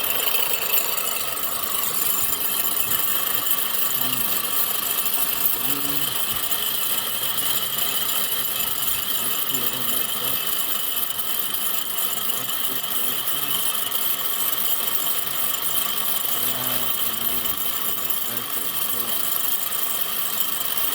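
A Toyota Sienna's 3.5-litre V6 running with a steady whining, grinding noise from the alternator, whose pulley clutch the mechanic takes to be going out; the alternator is not charging.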